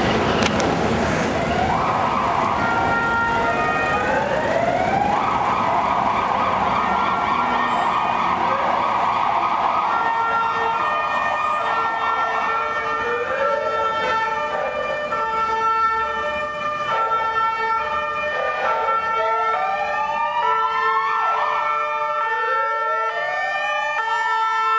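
Several police car sirens sounding at once, their pitches overlapping; from about halfway through, quick rising sweeps repeat every second or two.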